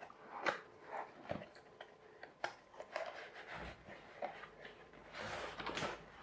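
Toy packaging being handled: scattered light clicks and short rustles of cardboard and plastic, with a longer rustle about five seconds in.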